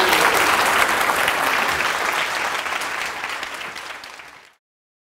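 Audience applauding, the clapping fading away and then cutting off to silence near the end.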